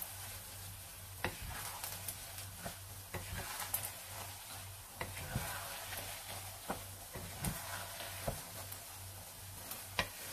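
Wooden spatula stirring and folding thick, sticky glutinous rice cake mixture in a nonstick pan. The mixture sizzles steadily, and the spatula knocks against the pan about ten times.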